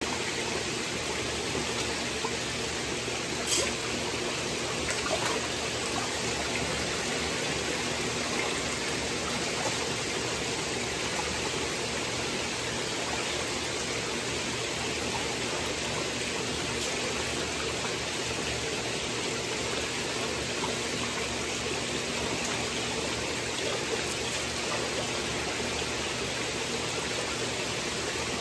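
Steady rush of water pouring and circulating through the hatchery tanks from the pump return pipes, over a faint steady hum of the electric pump motors. One short sharp sound stands out about three and a half seconds in.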